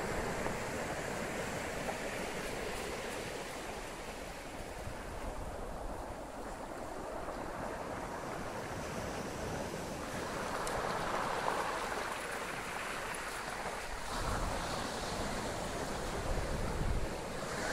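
Rough ocean surf breaking and washing up a black sand and pebble shore, a steady rush of water that swells about ten seconds in.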